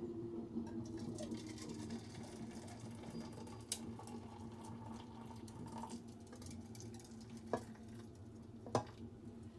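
Faint kitchen handling sounds: light scratching and a few sharp clicks over a steady low hum.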